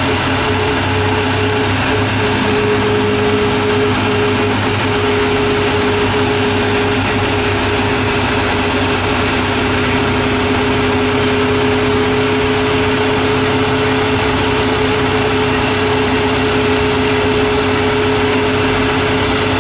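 Ford Mustang GT's 5.0 V8 idling steadily on a chassis dyno, a constant drone with a steady whine over it and no revving.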